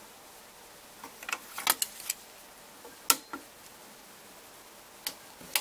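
Cassette deck's cassette door and tape being handled by hand: a quick cluster of plastic clicks and rattles about a second in, a single sharp click about three seconds in, and two more clicks near the end, as the cassette door is closed.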